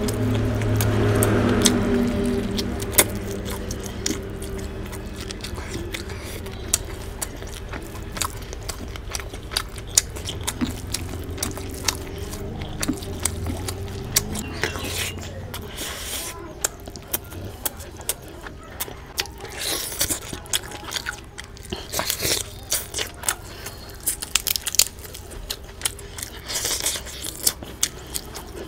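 Close-up eating sounds: fingers squishing and mixing rice with curry on a plate, and wet mouth clicks and chewing in many short sharp bursts. A low steady hum sits under the first half and fades away.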